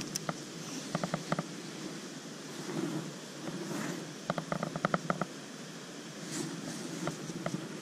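Small spinning reel clicking in short runs of rapid ticks as it is cranked, once about a second in and again near the middle, over a steady low background rush.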